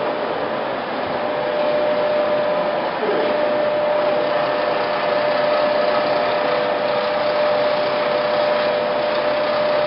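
Heavy-duty lathe running steadily: an even mechanical noise with one constant tone through it.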